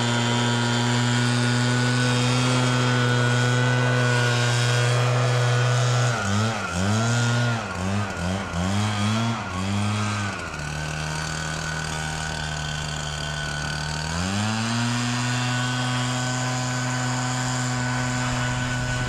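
Gas backpack leaf blower running at full throttle. About six seconds in the throttle is let off and opened again several times in quick succession, then the engine drops to idle for a few seconds and revs back up to full throttle around fourteen seconds in.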